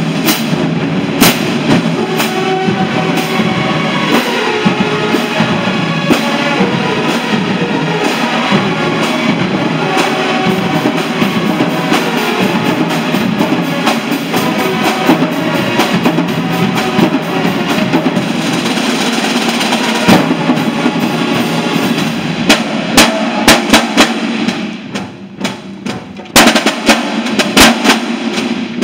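A marching band drumline of snare drums, bass drums and crash cymbals, playing loudly as part of the full band. About 24 seconds in the sound drops away, then a run of sharp drum and cymbal hits follows near the end.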